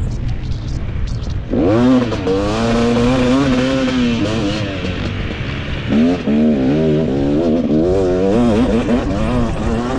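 250 cc two-stroke motocross bike engine on the throttle, heard from on board over rumbling wind and chassis noise. Its pitch jumps up sharply about a second and a half in, holds and wavers, eases off around four seconds, then climbs again about six seconds in and keeps rising and falling with the throttle.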